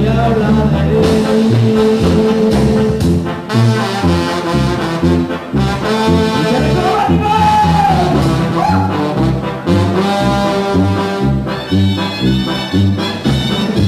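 Mexican banda brass band playing dance music: trumpets and trombones over a steady pulsing low bass, with one line arching up and back down in pitch midway.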